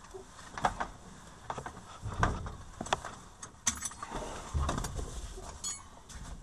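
Scattered clicks, knocks and rustles of a pilot moving about and handling gear in a light aircraft's cockpit with the engine stopped, with a few low thumps a little past the middle and a short metallic clink near the end.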